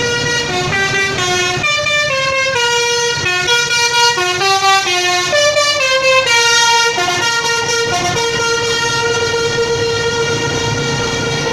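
Basuri telolet horn, a multi-tone musical air horn on a vehicle, playing a quick melody of short stepping notes, then holding one long steady note from about halfway through.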